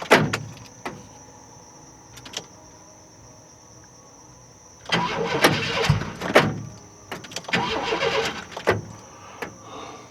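Chevrolet Astro van door latch and inside opener being worked: a few sharp clicks, then two stretches of clunking and rattling a little past halfway through as the door is opened and shut. The door opener has just been repaired and now releases the latch.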